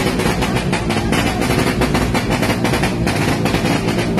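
Music with a fast, steady drum beat.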